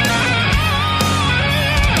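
Rock band playing: a distorted electric guitar holds notes with vibrato over drums and bass.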